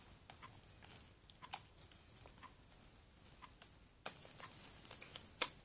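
Faint sticky clicks and squelches of foamy, borax-free soap slime being squeezed and pulled between the fingers, turning into a denser crackle about four seconds in, with one sharper pop near the end.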